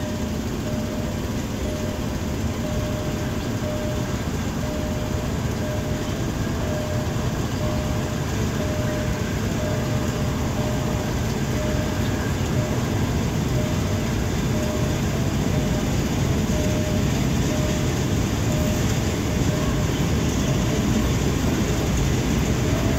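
Ordinary passenger train hauled by a diesel locomotive, heard from inside a coach as it runs: a steady rumble of wheels on rails that grows slightly louder. A faint tone pulses about once a second.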